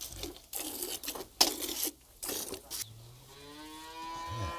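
Several bursts of rustling noise with a sharp click about a second and a half in, then a cow in the cowshed starts one long, steady moo about three seconds in that is still going at the end.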